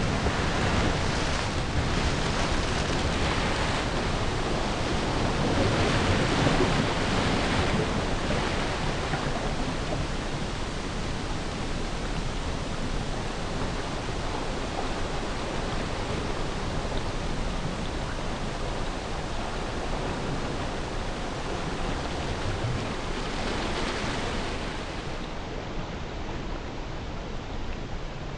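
Churning sea water rushing and hissing in a steady wash, swelling a little about six seconds in and easing slightly toward the end.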